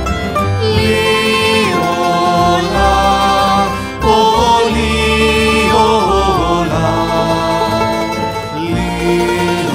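Recorded folk song: a voice singing a traditional verse in the Griko dialect of southern Italy over instrumental accompaniment, in phrases a couple of seconds long with short breaks between them.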